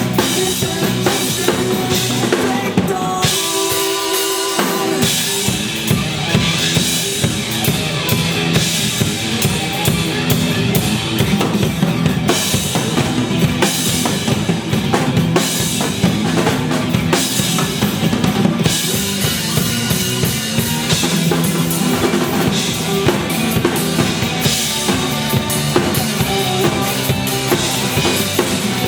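Drum kit played along to a rock backing track: bass drum, snare and cymbals in a steady driving beat, with the drums dropping out briefly about three seconds in before coming back.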